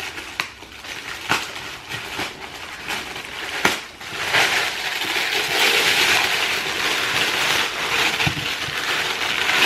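Packaging rustling and crinkling as black wrapping is pulled off a box by hand, with scattered sharp crackles. It grows louder and denser about four seconds in.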